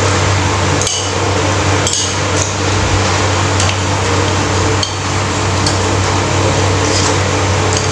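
Metal spoons and forks clinking against a ceramic soup bowl about eight times at uneven intervals as two people eat noodle soup from it. A steady hum and hiss runs underneath.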